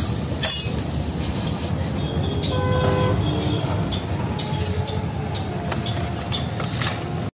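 Air compressor running with a steady low rumble. A short horn-like tone comes about two and a half seconds in, and faint clicks come from tyre-repair tools.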